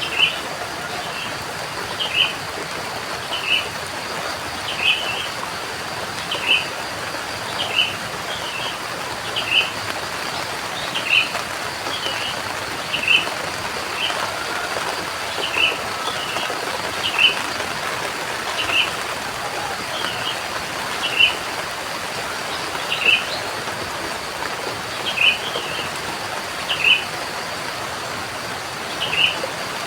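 Steady rain falling, with a bird repeating a short high chirp about every one and a half seconds.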